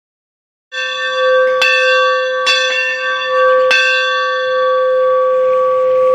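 Church bell struck several times about a second apart, starting just under a second in, then left to ring on and slowly fade.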